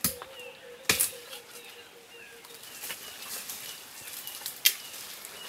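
Four sharp knocks or cracks, spaced a second or more apart, with faint bird chirps in between.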